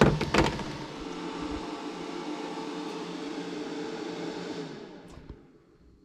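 Pure sine wave inverter-charger running under a heavy heater load, its cooling fan whirring steadily with a hum, after a few clicks at the start. Near the end it winds down and stops as the inverter shuts off because the battery bank has run down.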